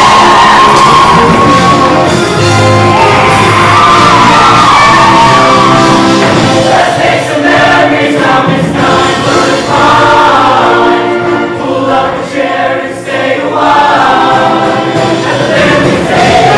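Show choir singing loudly in many voices over instrumental backing, with a short choppier, quieter passage about twelve seconds in.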